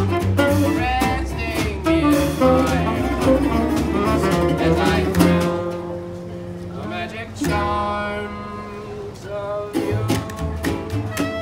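Small acoustic jazz band playing: upright bass, acoustic guitar, small drum kit and saxophone. In the middle the beat drops back while long horn notes are held, and the full band returns near the end.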